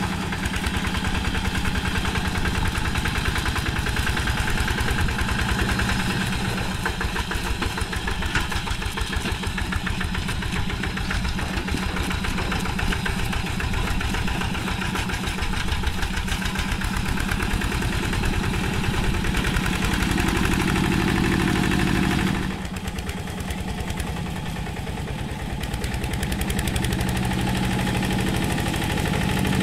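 Single-cylinder diesel engine of a two-wheel hand tractor running steadily under load as it pulls through paddy mud, with a rapid, even firing beat. About three-quarters of the way through the sound suddenly turns duller and a little quieter, then builds back up near the end.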